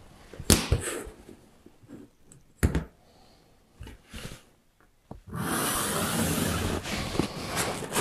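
A long straightedge knocked and shifted about on a template sheet, with a few separate knocks, then from about five seconds in a steady scratching as a pencil draws a long line along it.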